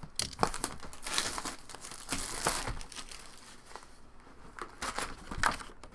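Trading card pack wrappers being torn open and crinkled by hand, an irregular run of crackling rustles.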